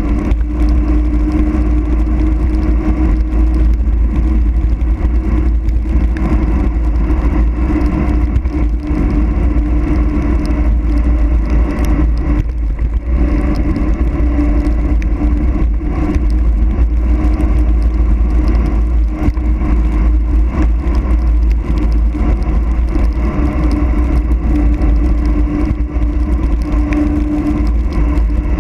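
Wind buffeting the microphone with a heavy low rumble as a mountain bike descends an asphalt road at speed. The tyres hum steadily on the road surface.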